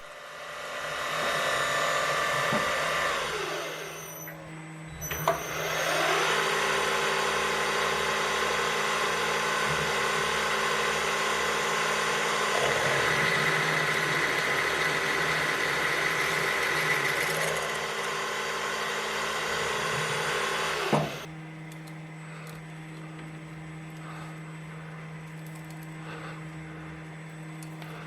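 Power machine tool cutting steel square tubing: a steady cutting noise that dips briefly about four seconds in, resumes, and stops abruptly about three-quarters of the way through. The machine's motor hum keeps running after that.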